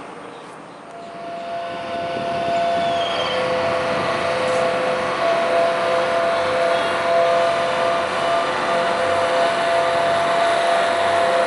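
Engine of a Friendship water-taxi boat running as it moves off from the dock. It makes a steady drone with two held humming tones that come in about a second in.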